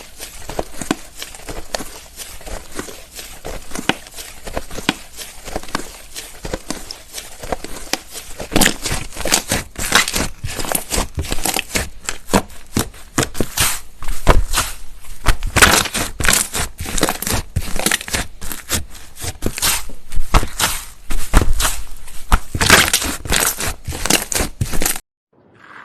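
Slime being squeezed and worked close to the microphone: rapid, irregular crackling and popping clicks that grow louder about a third of the way in and cut off abruptly near the end.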